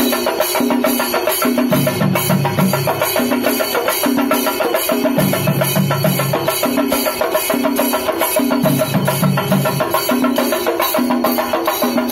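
Chenda drum ensemble playing a fast, even rhythm of many beaten strokes, over a low two-note pattern that repeats every few seconds.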